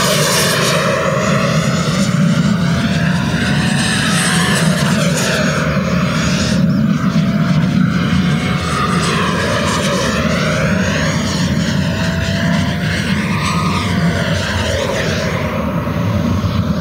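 Freewing Avanti S electric ducted-fan model jet with an 80 mm WeMoTec Midi Evo fan, flying fast passes under high power. It makes a steady fan whine over rushing air that rises and falls in pitch as the jet sweeps past, several times.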